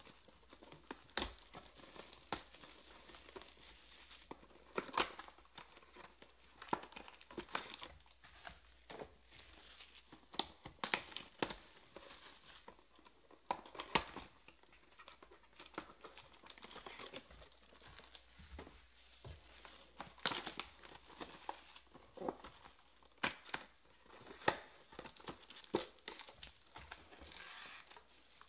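Clear plastic shrink wrap being torn and crumpled off trading-card boxes, with irregular sharp crackles and snaps throughout as the boxes are opened and the foil packs handled.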